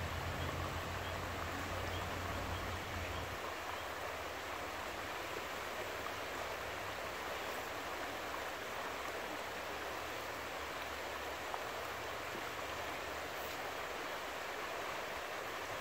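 Steady rush of a shallow, fast-flowing river rippling over its bed, with a low rumble underneath that stops about three seconds in.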